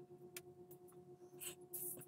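Faint handling sounds as a model display stand is worked on by hand: a light click, then brief scraping rustles about one and a half seconds in and near the end, over a steady low electrical hum.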